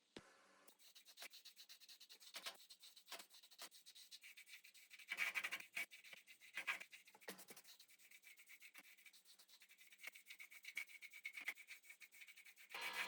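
Rapid rubbing or scraping strokes, done by hand, with a few louder strokes about five to seven seconds in.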